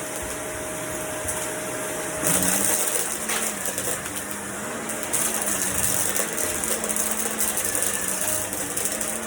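Vacuum cleaner running steadily, a high rush of air over a held motor hum. It gets louder about two seconds in and again about five seconds in.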